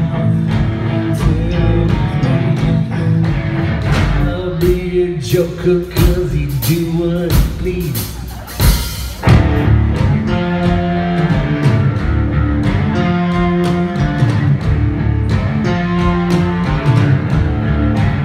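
Live rock band playing on guitars and drums through a stage PA, with a short drop in level about eight to nine seconds in before the full band picks up again.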